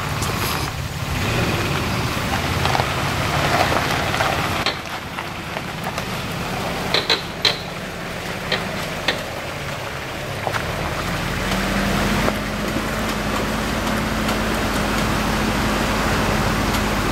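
Small 4x4 pickup truck's engine running as it drives past on a gravel trail and then wades into a flooded creek crossing, with water splashing around it. A few sharp clicks come midway, and the engine settles into a steady low hum in the water.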